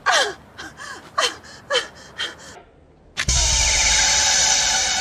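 A woman's short gasping cries, about two a second, each falling in pitch. After a brief pause comes a sudden loud hit: a deep boom with a sustained ringing chord that slowly fades, a horror-film stinger.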